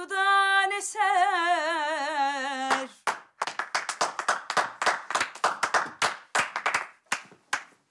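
A woman sings the end of a Turkish song line with wide vibrato, holding the last note as it falls. About three seconds in, a few people start clapping, and the applause tapers off near the end.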